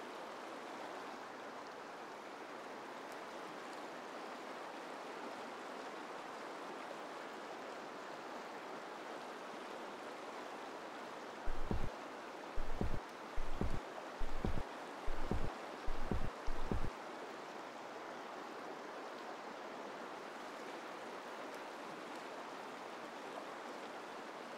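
Steady, even rushing background noise. About halfway through it is joined by seven slow footsteps of boots on a wooden bridge deck, short low thuds spaced a little under a second apart.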